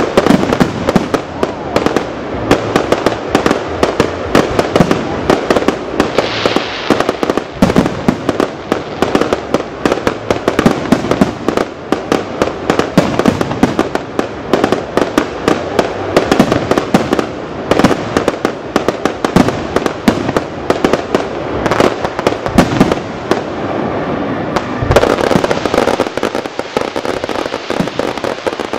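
Fireworks display: a dense, rapid barrage of bangs and crackles from bursting aerial shells and rising stars, with no let-up, growing into a thicker crackling wash near the end.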